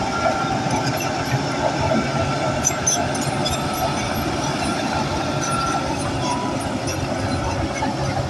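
Bulldozer running steadily under load: an even engine noise with the clatter and scattered short squeaks of its steel crawler tracks.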